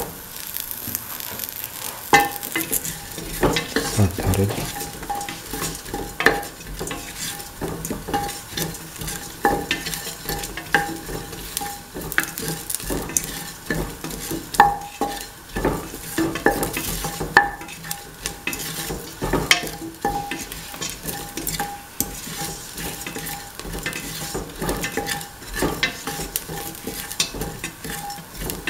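Shallots, garlic and fennel seeds sizzling in oil in a stainless steel pan while a spatula stirs them, with frequent scrapes and clicks of the spatula against the metal.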